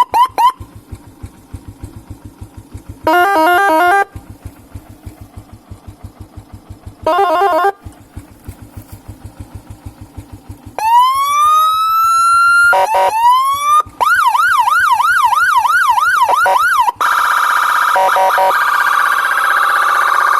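Electronic multi-tone siren horn stepping through its tones. It gives a few short chirps, a rapid warble twice, a long rising wail, more chirps, then a fast up-and-down yelp, and settles into a steady high tone near the end.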